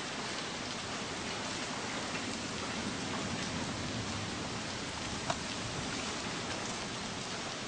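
Steady rain falling and pattering on a surface, with a single sharp tap about five seconds in.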